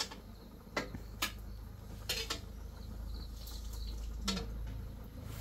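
Utensils clinking against dishes: a handful of short, light clinks spread a second or so apart, over a low steady rumble.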